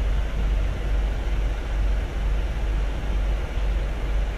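Steady low rumble with an even hiss above it: a Mitsubishi Canter truck's engine running with its newly fitted air conditioning switched on and cooling.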